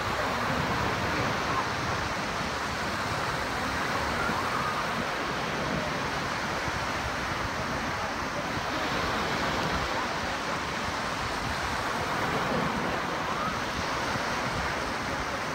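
Steady wash of surf and wind, an even rushing noise that holds at one level throughout.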